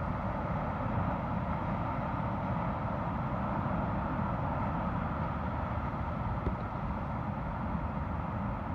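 Steady wash of ocean surf with wind rumbling on the microphone, plus one faint click about six and a half seconds in.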